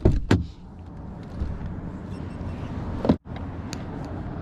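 Steady low rumble heard inside a car, with a few sharp clicks and knocks at the start and another click about three seconds in, followed by a brief cut-out of the sound.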